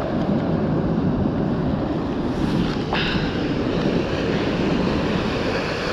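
Wind buffeting the microphone over the steady wash of ocean surf on a beach, with a brief rising squeak about halfway through.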